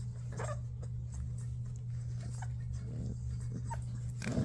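Rottweiler puppies play-fighting, giving short whimpers and yips, with a louder cry near the end. A steady low hum runs underneath.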